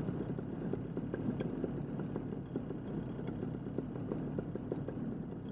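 Moster 185 single-cylinder two-stroke paramotor engine running steadily behind the pilot, a low, even drone.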